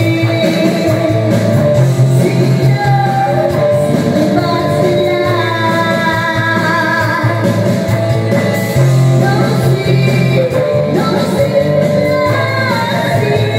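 A woman singing karaoke into a corded handheld microphone over a backing track, holding long wavering notes.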